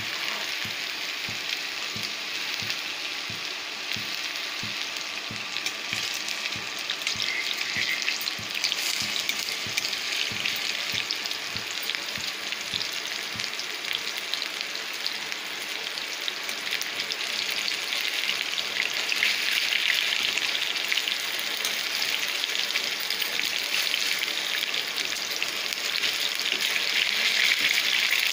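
Gram-flour-battered chicken pakoras deep-frying in hot oil in a kadai: a steady crackling sizzle.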